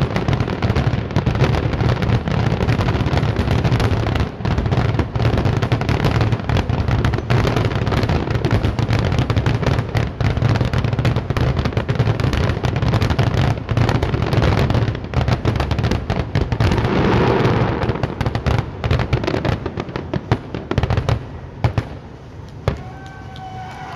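Fireworks finale: a dense, continuous barrage of aerial shell bursts, the bangs overlapping one another, thinning out about twenty seconds in to a few last scattered bangs.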